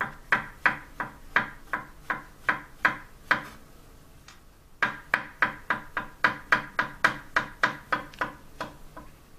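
Kitchen knife slicing button mushrooms on a wooden cutting board: steady knocks of the blade on the wood, about three a second, with a short pause midway before the slicing resumes.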